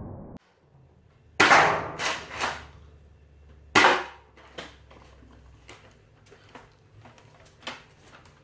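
Spring-powered Nerf Retaliator blaster with an upgraded 6 kg spring firing twice, two loud sharp cracks about two and a half seconds apart, each followed by a couple of lighter knocks. Lighter plastic clicks and clacks of the blaster being handled follow.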